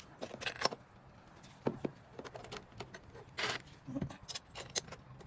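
Small metal hand tools clinking and clicking, sockets and a ratchet being handled and swapped while the right socket size for the carburettor bolts is sought, with a sharper clatter about three and a half seconds in.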